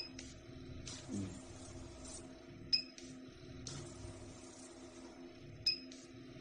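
RF microneedling machine working in automatic mode: a short high beep about every three seconds, three in all, as each shot fires on the skin. A steady machine hum runs underneath, and a hiss comes and goes between the beeps.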